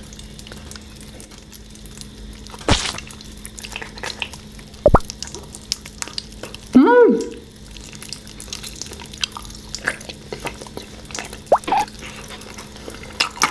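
Close-up mouth sounds of eating soft cola-flavoured gelatin jelly: wet squelching, sucking and smacking with many small wet clicks, and two sharper clicks in the first five seconds. A short pitched sound that rises and falls comes about seven seconds in.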